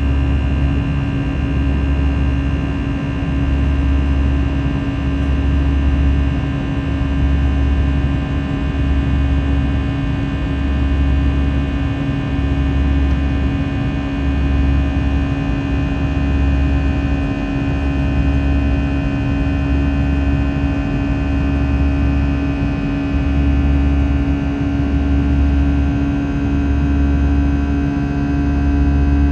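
Airbus A321's CFM56-5B turbofan engines heard inside the cabin from a seat over the wing, running steadily at climb power after takeoff. They make a buzzing drone of many steady tones, with a slow throb in the low rumble every couple of seconds.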